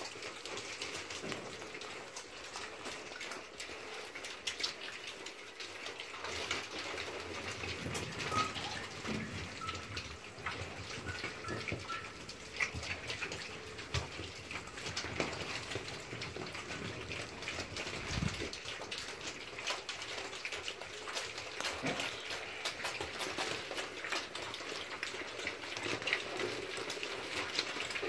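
A group of piglets feeding and moving about a concrete pen: steady snuffling, chewing and scuffling of trotters, heard as many small clicks over a noisy hiss. A few short high notes come about a third of the way in.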